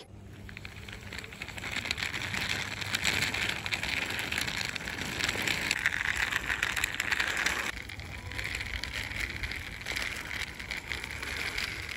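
Plastic wheels of a small toy motorbike rolling and scraping back and forth over a rough, mossy surface, a steady gritty rattle that eases briefly about two-thirds of the way through.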